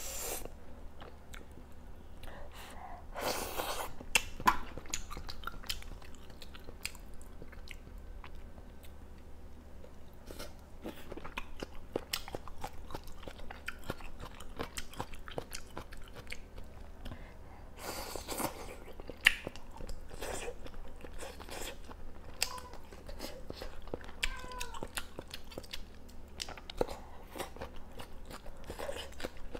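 A person chewing a mouthful of duck hotpot and rice vermicelli close to the microphone, with many small wet mouth clicks. Two longer noisy intakes come about 3 seconds and 18 seconds in.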